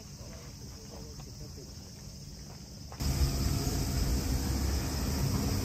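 Cicadas shrilling steadily in summer heat. About three seconds in it turns abruptly louder, with wind rumbling on the microphone under the insect noise.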